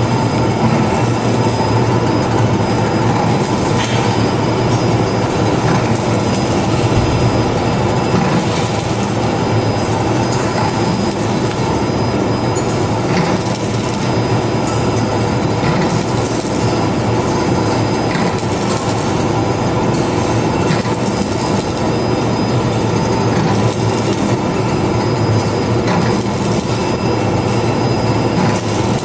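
Automated pizza shrink-wrapping machine and its infeed conveyor running: a loud, steady mechanical noise with a low hum and occasional faint clicks.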